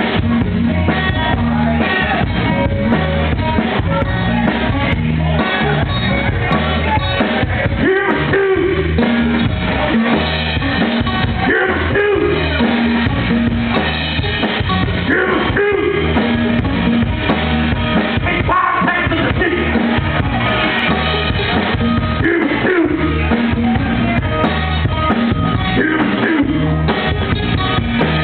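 Live band playing an instrumental passage: a drum kit keeping the beat under a bass line that moves in long low notes, with plucked strings on top.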